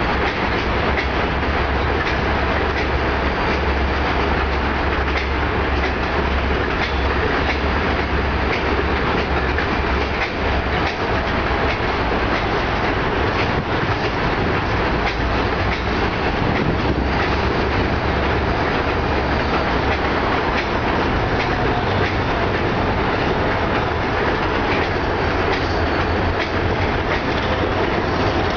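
Freight train rolling across a steel trestle: a steady rumble with the wheels clacking over the rail joints as the cars and then the diesel locomotives pass.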